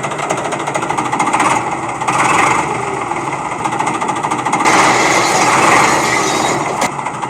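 A small machine running with a loud, fast, steady rattle that swells a little in the middle and cuts off abruptly at the end.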